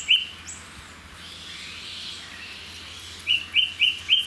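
A bird calling in a fast run of short, slightly rising chirps, about four a second. One run ends just after the start and another begins a little past three seconds in.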